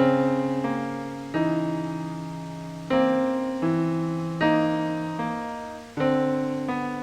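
Experimental ambient music of slow chords, a new chord struck about every one and a half seconds and left to fade.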